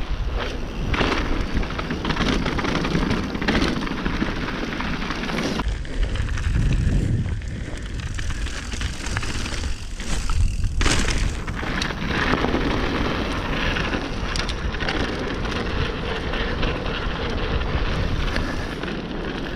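Wind rumbling and buffeting on the microphone of a mountain bike descending a dry dirt and rock trail, mixed with the tyres rolling over the dirt and occasional knocks from bumps. It eases briefly partway through, then picks up again.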